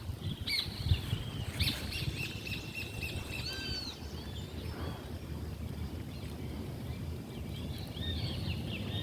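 Birds singing outdoors: repeated short arched chirps and whistles, busiest in the first few seconds and again near the end, over a steady low rumble.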